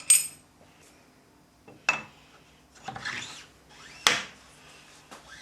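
Steel mandrel being handled and slid into the bore of a machined dividing-head casting: a ringing metal clink at the start, a knock about two seconds in, a short rubbing slide, then a sharper knock about four seconds in.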